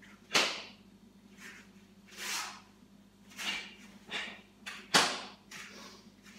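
A karateka running through a kata at speed: a series of short swishes from the uniform and sharp breaths with each technique, and two loud snaps of the gi, one about half a second in and one about five seconds in.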